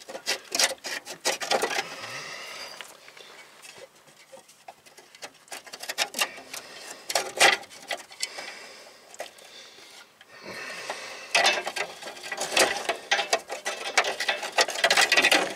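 Irregular scraping, rubbing and light clicking of a metal brake line being worked by hand along a rusty vehicle underbody. It comes in two busy stretches, at the start and again from about ten seconds in, with a quieter stretch between them.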